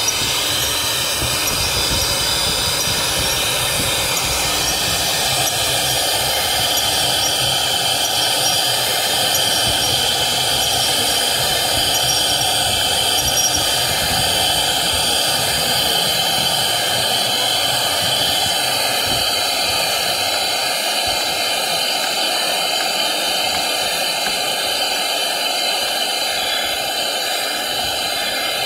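A CNC router's 4.5 kW HQD spindle running at speed while its bit carves into a wooden block, giving a steady high hiss and whine that keeps up throughout.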